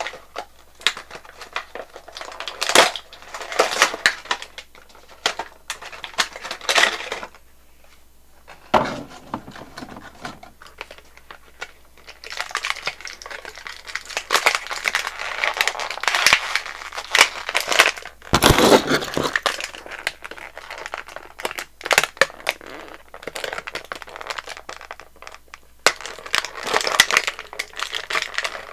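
Clear plastic toy packaging crinkling and crackling as it is handled and pulled apart, in irregular bursts with sharp clicks and a few short pauses.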